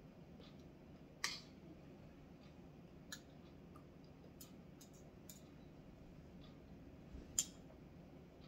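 Quiet eating sounds at the table: scattered sharp clicks and taps, with two louder clicks about a second in and near the end and a few fainter ones between.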